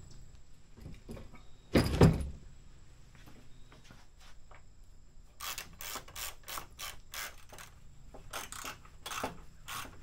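Jeep Wrangler TJ door lock and latch mechanism being worked: one loud clunk about two seconds in, then a run of sharp mechanical clicks from about halfway on.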